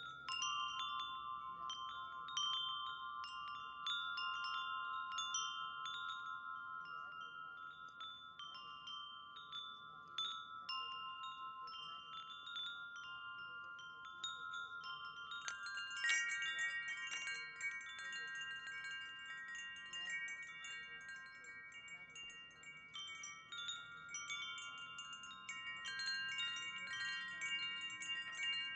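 Wind chimes ringing, many clear, long-sustained tones struck at irregular moments, starting abruptly at the outset. About halfway through, a louder cluster of strikes comes and brighter, higher tones join in.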